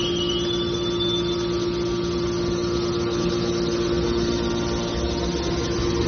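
Hydraulic baler for aluminium cans running, its motor and pump giving a steady, loud mechanical hum with a few steady tones. A faint high whine rises in pitch and fades within about the first second.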